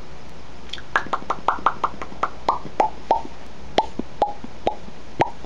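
A man making mouth pops right at the microphone: a quick run of short pitched plops, about three or four a second, starting about a second in, their pitch stepping down and then back up like a little tune.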